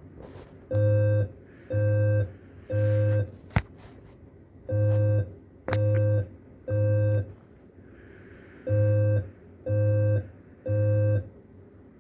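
Fire alarm voice evacuation speakers sounding the temporal-three evacuation tone: three groups of three short, even tones, each group about four seconds apart. Two brief sharp clicks come through in between.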